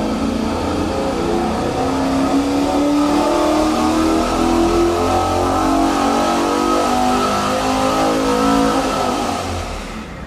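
Naturally aspirated 454 cubic inch LS7 V8 running on an engine dyno, its note shifting slightly in pitch and then fading down near the end.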